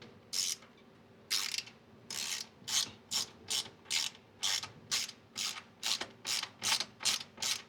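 Hand ratchet wrench clicking in short back-and-forth strokes, about two to three a second, as bolts are run in. A couple of separate strokes come first, then a steady run from about a second and a half in.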